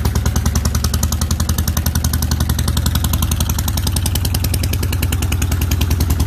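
V-twin motorcycle engine idling, a steady stream of rapid, even exhaust pulses with no revving.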